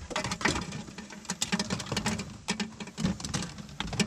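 Irregular small clicks, taps and rustles of hands handling electrical wiring and plastic parts at a car's dome light.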